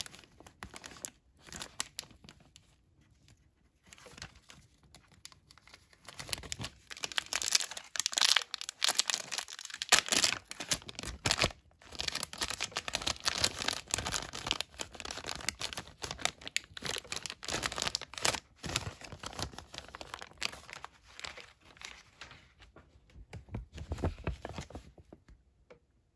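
Thin plastic MRE hot beverage bag being torn open and unfolded by hand, crinkling and rustling in irregular bursts that are loudest through the middle.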